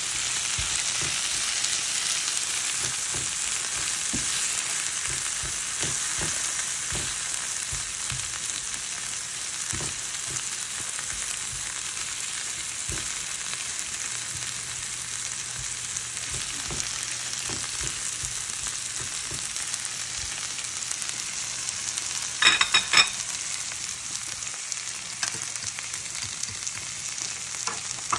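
Sliced zucchini, onion, bell pepper and spinach sautéing in a nonstick frying pan: a steady sizzle with occasional soft knocks of a spatula stirring. Late on, a brief loud ringing clatter.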